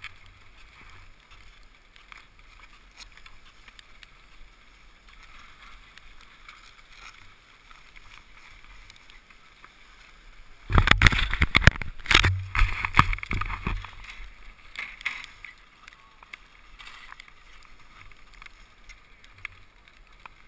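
Faint steady background hiss, broken about eleven seconds in by roughly three seconds of loud rustling and thumping as heavy ski gloves are clapped and rubbed together right by the camera's microphone.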